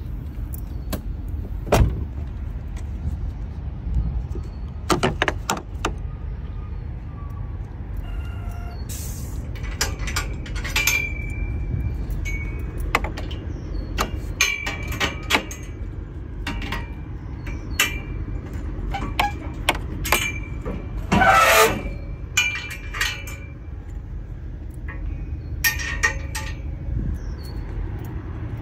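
Scattered knocks, taps and rustles of a hand and a handheld phone moving over the front of a semi truck, over a steady low rumble. The loudest cluster of knocks comes a little past two-thirds of the way through.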